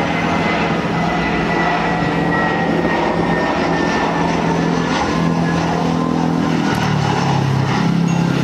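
Twin jet engines of an Airbus A320 airliner on final landing approach: a steady roar with a thin high whine that slowly falls in pitch.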